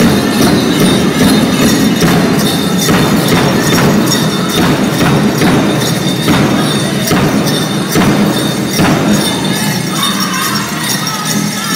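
A powwow drum group singing to a steady, pounding beat on the big drum, with dancers' bells jingling.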